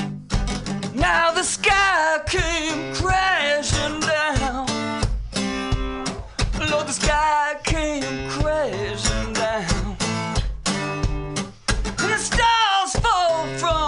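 Acoustic guitar strummed in a steady rhythm, with a voice singing a wavering melody over it from about a second in.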